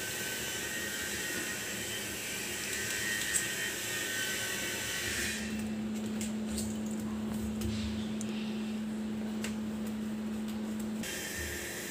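Steady background hiss, then from about five seconds in a low steady hum, with a few faint clicks of a knife touching a steel plate while cutting soft barfi.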